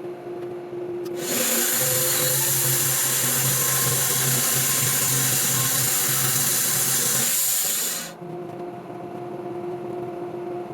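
Sawmill running, its saw blade cutting through a white oak log: a loud, even rasping from about a second in that stops sharply near eight seconds, over the steady hum of the mill's engine.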